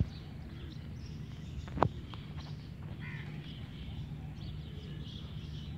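Two goats butting heads: a sharp crack of heads clashing at the start and a louder crack nearly two seconds in. Birds call faintly over a steady low background hum.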